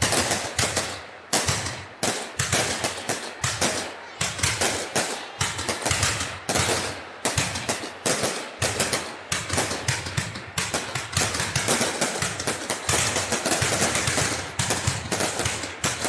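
Fireworks display: a dense, unbroken run of rapid bangs and crackles, several a second, overlapping one another.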